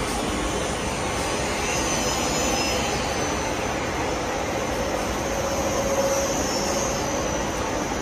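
PVC coil mat extrusion line running, its motors and oven section giving a steady mechanical roar with a faint high whine over it.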